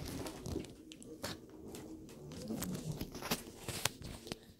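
Handling noise from a phone being picked up and repositioned: fingers rubbing and knocking on it, with scattered sharp clicks and knocks.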